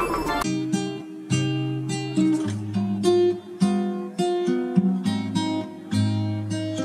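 Background music: acoustic guitar plucking a melody of single notes over lower bass notes. A falling electronic sweep from the intro ends about half a second in.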